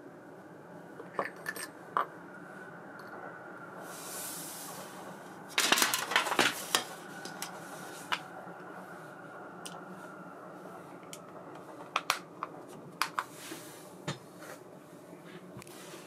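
Small metal parts of a round baitcasting reel clicking and clinking as it is taken apart and the pieces are set down on a wooden bench, with a dense cluster of clicks about six seconds in and more scattered clicks later. A short hiss comes a few seconds in.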